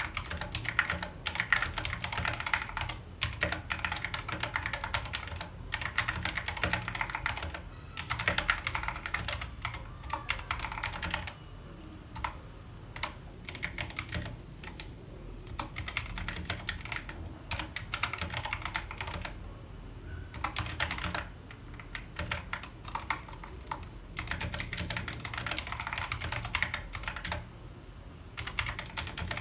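Typing on a Royal Kludge RK100 mechanical keyboard fitted with XDA-profile PBT keycaps: rapid runs of keystroke clacks in bursts, broken by short pauses.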